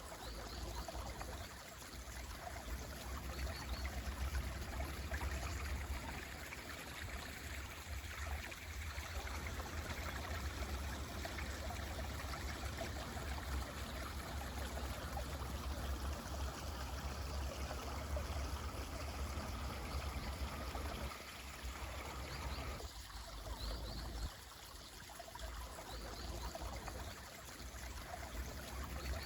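Mountain stream flowing with a steady rush of water; the flow ebbs slightly a few times.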